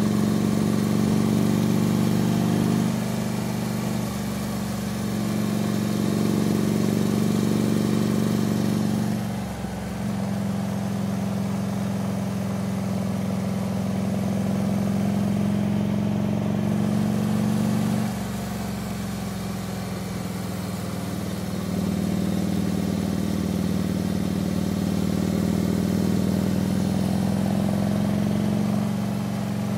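Harley-Davidson V-twin running under way on a motorcycle ridden up a winding mountain road. The engine note steps down a few times and picks up again as the throttle is eased off and reopened through the bends, with a brief dip about a third of the way in.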